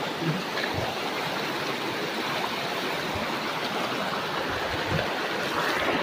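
Shallow mountain stream rushing over rocks, a steady noise of running water.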